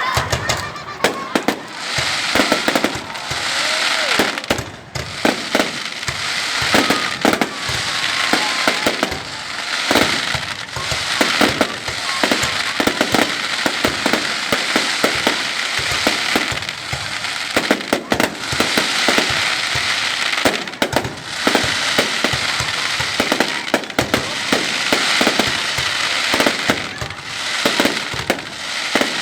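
Fireworks display: a dense, continuous barrage of bangs, several a second, over steady crackling.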